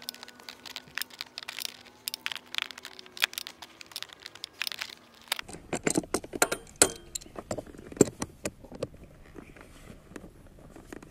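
Irregular small metallic clicks and clinks of a hand tool, nuts and washers as the wire connections on an ATV's starter relay terminals are fitted and tightened. A faint steady hum stops about five seconds in.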